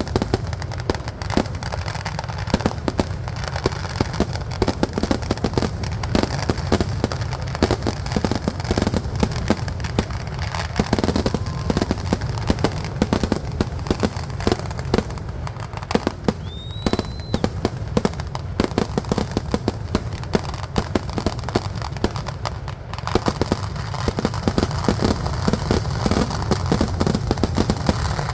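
Kerala temple-festival fireworks (vedikkettu): a dense, unbroken barrage of firecracker bangs, many each second, with louder blasts among them and a brief rising whistle about two-thirds of the way through.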